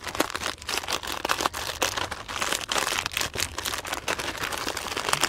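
Potato chips being crushed by hand inside a sealed Lay's crisp packet: the plastic bag crinkles and the chips crackle as they break, in a dense, irregular run of small cracks.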